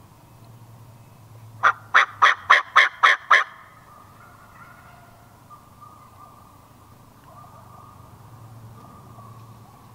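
Turkey yelping: a quick run of seven sharp yelps at about four a second, starting just under two seconds in.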